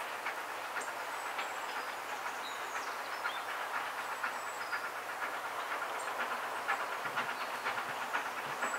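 Steam-hauled train approaching at a distance: a steady rushing noise from the working locomotive and its train, with many faint clicks.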